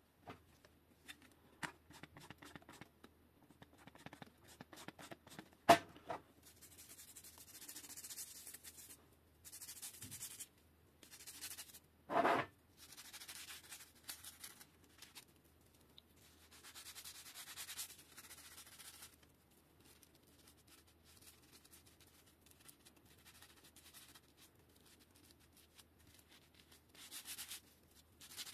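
Toothbrush scrubbing a perforated bicycle brake disc with foamy degreaser, in stretches of scratchy bristle rubbing a few seconds long, cleaning oil and dirt out of the disc's holes. A sharp knock comes about six seconds in and a louder clunk about twelve seconds in.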